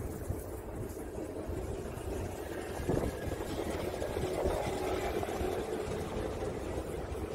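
Steady low rumble of an idling engine, with a single sharp click about three seconds in.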